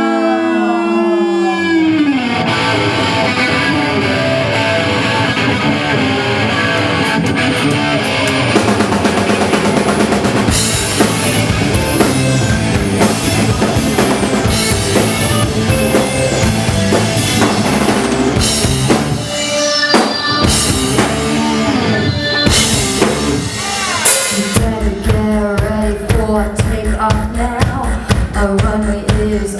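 Live rock band playing an instrumental passage with prominent drum kit and guitar. A falling pitch slide opens it, and the low end comes in heavily about 24 seconds in.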